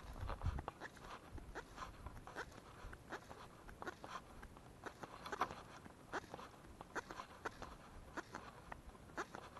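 Faint, irregular clicks and rustles of a fishing rod and reel being handled during a lure retrieve, a couple of ticks a second.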